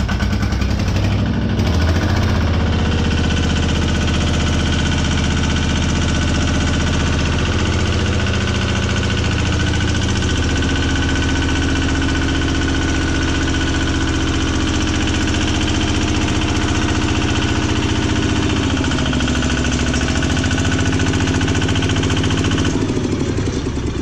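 Small tractor's engine running hard under load as the tractor labours through deep sand. The pitch shifts a few times, dips briefly about nineteen seconds in, and the engine eases off just before the end.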